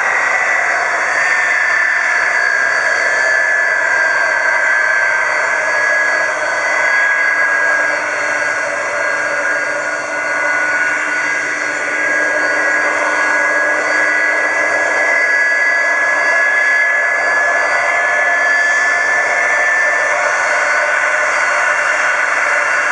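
Boeing 747-400's four turbofan engines whining steadily at taxi power, a high-pitched whine that falls slowly in pitch over a steady rush of jet noise.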